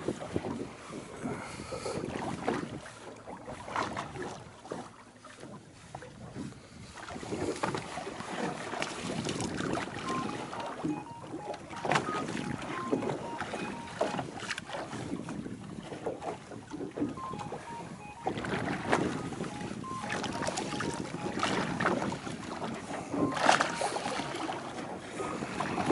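Wind on the microphone and sea noise aboard a small fishing boat, with water washing against the hull and scattered short clicks and knocks. Faint short beeps repeat through the middle.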